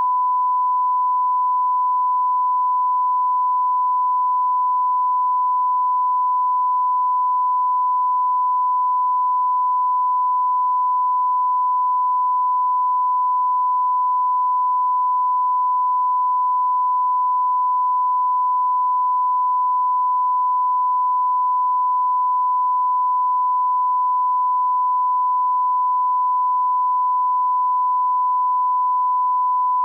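Censor bleep: a single steady beep tone held without a break, covering the swearing.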